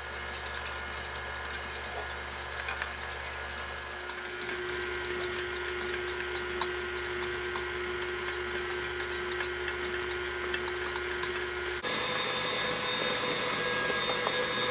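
A fork beating eggs in a stainless-steel bowl: quick, uneven clinks of metal on metal. About twelve seconds in it cuts to the steady motor hum and whine of a KitchenAid stand mixer running.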